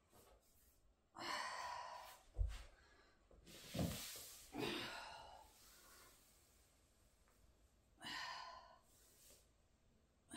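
A woman breathing out audibly in several long, airy exhales while stretching on a yoga mat, with one short low thump about two and a half seconds in.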